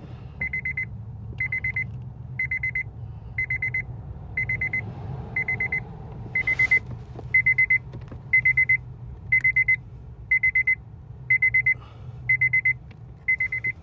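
A Honda Civic's dashboard warning buzzer beeping: short bursts of rapid high pips, about one burst a second, growing louder about halfway through. It is the kind of reminder a Civic sounds with the door open and the key in the ignition.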